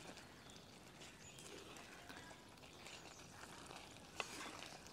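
Faint stirring of a thick grated-coconut and masala mix with a wooden spoon in a clay pot, over a low sizzle from the hot pot, with one sharp knock of the spoon about four seconds in.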